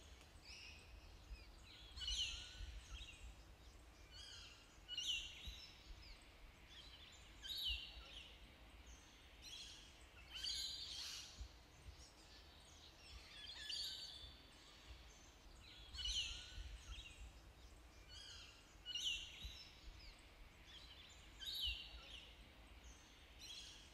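Newborn lion cubs mewing: short, high-pitched squeaky cries repeated every two to three seconds, over a faint low rumble.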